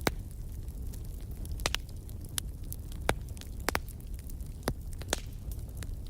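Wood fire burning in a fireplace, crackling: irregular sharp pops and snaps, about ten of them, over a low steady rumble.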